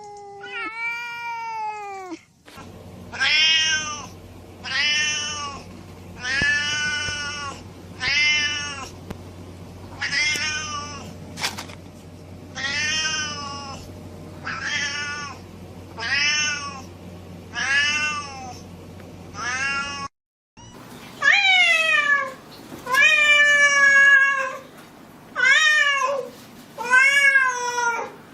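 Domestic cat meowing over and over: about a dozen meows spaced roughly a second and a half apart over a low steady hum, then, after a brief break, several longer and louder meows.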